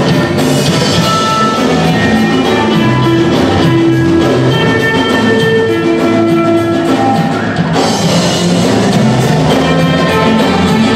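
Loud dance music from a band, with a steady drumbeat under held melody notes; the high percussion drops out for a moment about seven and a half seconds in.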